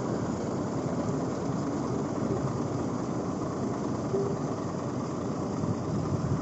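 Road roller engine running steadily.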